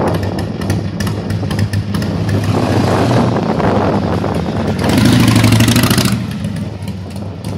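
Big V-twin motorcycle engines running at low revs as the bikes roll off, with one engine opening up louder for about a second just past the middle before easing back.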